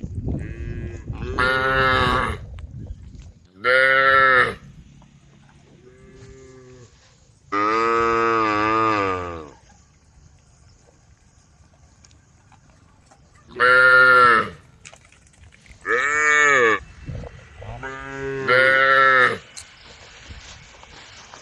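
Cows mooing in turn to call the herd: about eight separate moos, mostly short, with one longer call about a third of the way through.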